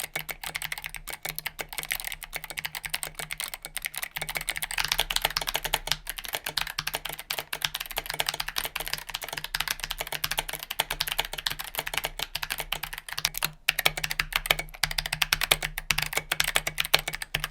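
Fast, continuous typing on a mechanical keyboard with Kailh Box clicky switches, each keystroke a sharp click from the switch's click bar. The typing gets louder about four and a half seconds in.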